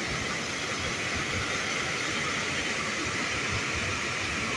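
Floodwater pouring over a dam's overflow spillway: a steady rush of falling white water, unbroken and even in level.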